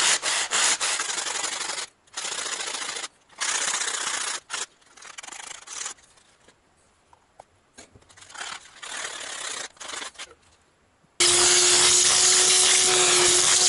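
Hand sanding of metal battery-cell terminals with a sanding sponge, in bursts of scrubbing strokes with short pauses, cleaning them for soldering. Near the end a vacuum cleaner starts abruptly and runs steadily with a hum, louder than the sanding, sucking up the dust.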